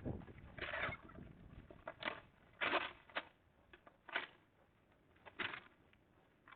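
Rake scraping through dry leaves and yard debris in about six short, irregular strokes.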